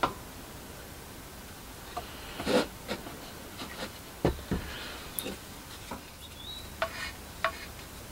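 Scattered light taps, knocks and short scrapes of a wooden coffee-stirrer spatula picking up two-part epoxy resin from a small mixing board, with the odd knock as the bent wooden frame is handled.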